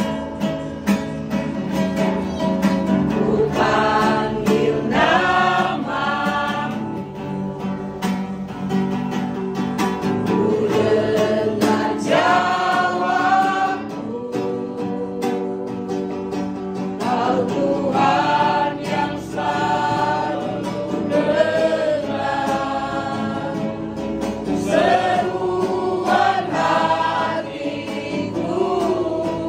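A small group of untrained voices singing an Indonesian praise song together, with guitar accompaniment.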